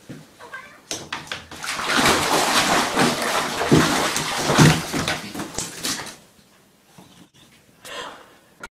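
Water splashing in a bathtub as a cat is held in it, loudest from about two to six seconds in.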